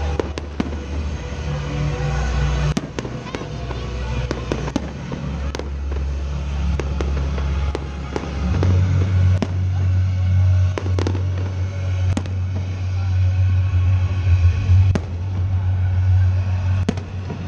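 Fireworks display: repeated sharp bangs of shells bursting overhead, irregularly spaced, over loud music with a heavy bass line.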